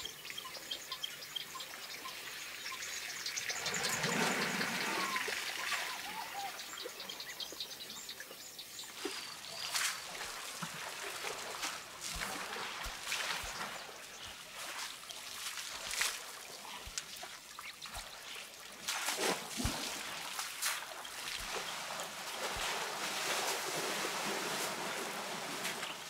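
African elephants at a waterhole: water trickling and splashing as they draw it up and spray it with their trunks, with scattered sharp splashes and drips and a louder stretch about four seconds in.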